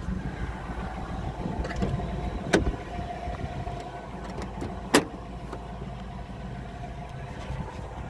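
Ford 5.4-litre V8 engine idling steadily in the truck, with two sharp clicks about two and a half seconds apart.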